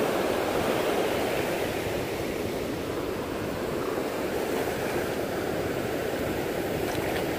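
Shallow sea surf washing in and out over the beach: a steady rush of water.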